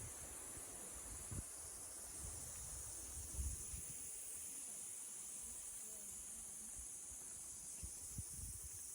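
Insects droning in a steady, high-pitched, continuous hum, with a few faint low thumps.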